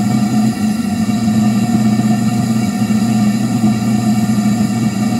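Propane-air combustion chamber running with a stable flame: a steady, even roar with a constant low hum underneath.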